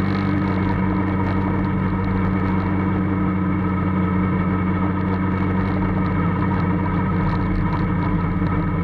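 Formula Student race car's engine running at steady revs, holding one constant pitch as the car cruises, heard from the cockpit.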